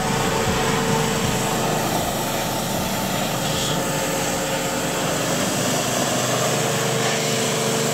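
Pressure washer spraying a jet of water onto a dirt bike: a steady hiss of spray with a constant tone underneath from the washer's motor.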